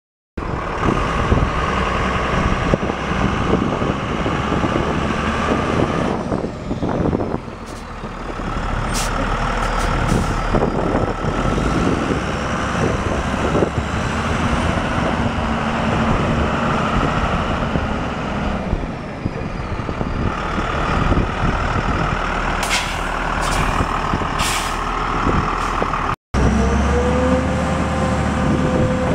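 A Sterling refuse truck's Cummins 5.9-litre inline-six diesel running, with a few short hisses or clicks along the way. After a cut near the end, a steady whine joins the engine while the rear packer's controls are worked.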